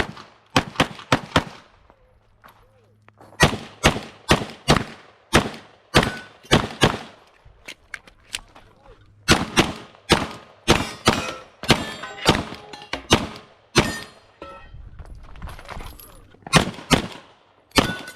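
Glock 34 9mm pistol fired in rapid strings of shots, about two to three a second. The strings are broken by pauses of one to two seconds.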